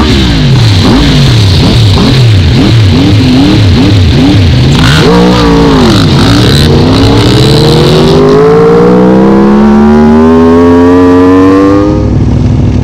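Sport quad's engine revved in quick throttle blips, about two a second, then accelerating hard in one long rising pull. It cuts to a steadier, lower engine note near the end.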